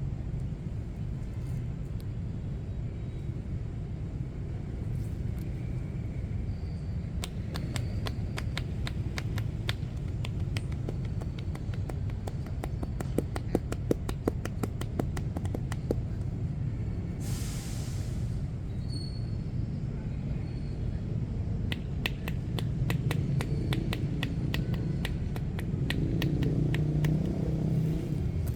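Steady low rumble of street traffic, with two long runs of quick light strikes, about five a second, typical of hands tapping on a body in percussive massage strokes. A short hiss sounds about halfway through.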